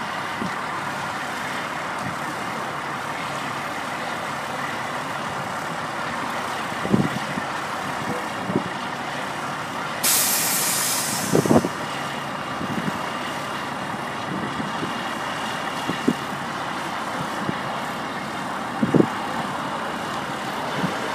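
Heavy truck idling steadily, with a sharp hiss of released air halfway through, like an air brake letting go, lasting about a second and a half, and a few short knocks.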